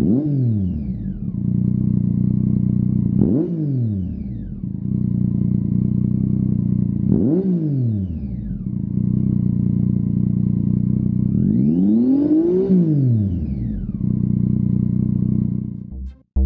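Triumph Tiger 800's inline three-cylinder engine idling through a Lextek GP8C aftermarket silencer. It is blipped quickly three times, about every four seconds, then held in a longer rev that rises and falls back to idle.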